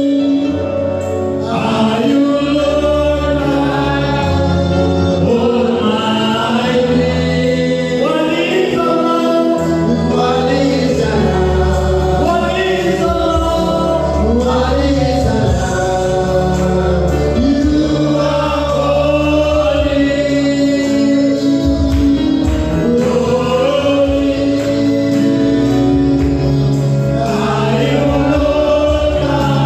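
Gospel singing with a choir and instrumental backing, a steady bass line under sustained sung melody.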